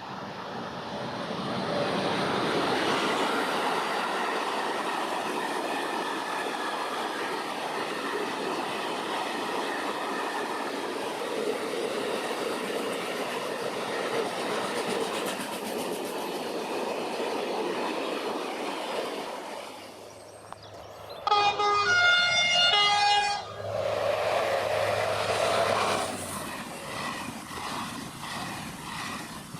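A train running past with a steady rolling noise for about twenty seconds, then sounding its horn in one loud blast of about two seconds, followed by more train noise that fades away.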